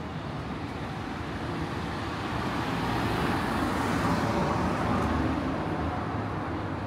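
A road vehicle passing close by on the street, its engine and tyre noise rising to a peak about four seconds in and then fading.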